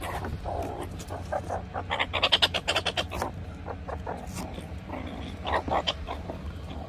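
Meerkats calling in rapid pulsed chatter, about ten pulses a second, while crowding around watermelon pieces. It comes in two bouts: a longer, louder one about two seconds in and a shorter one near six seconds.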